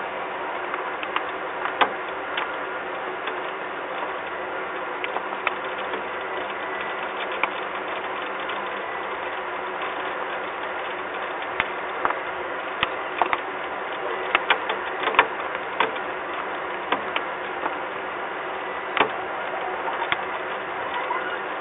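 Steady hiss of rain with irregular sharp ticks scattered through it, clustering in the second half.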